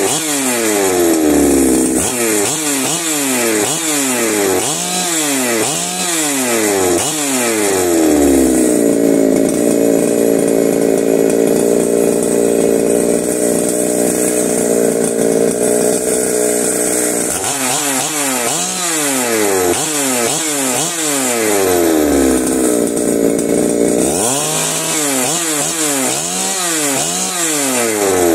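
Ported Holzfforma G372XP two-stroke chainsaw being revved in quick throttle blips, its pitch sweeping up and dropping back several times, settling to a steady idle for several seconds, then blipped again in two more runs of revs.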